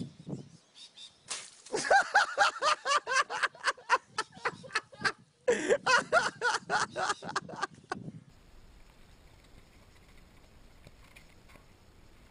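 Hard, high-pitched laughter in quick bursts, breaking off briefly about five seconds in and stopping about eight seconds in. Faint hiss follows.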